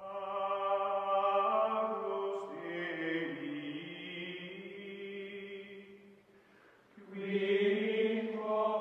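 Music of chant-like choral voices holding long, sustained notes. It fades almost away about six seconds in and swells back a second later.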